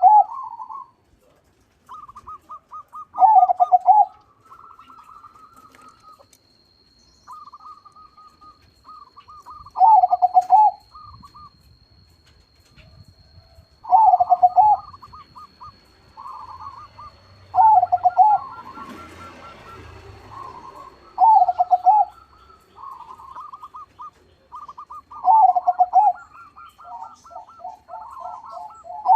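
Perkutut crossing (zebra dove of a local × Bangkok cross) cooing: a loud, full phrase about every three to four seconds, with softer, quicker trilled coos in between.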